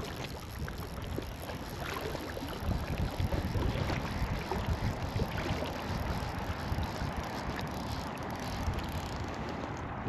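Water lapping and splashing against an inflatable float tube on choppy lake water, with wind buffeting the microphone as an uneven low rumble.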